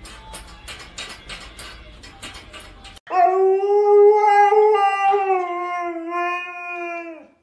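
A dog howling: one long, loud howl of about four seconds, held nearly level and sagging a little before it stops. Before it, a quick run of clicking and rattling, as of metal bars and a padlock being shaken.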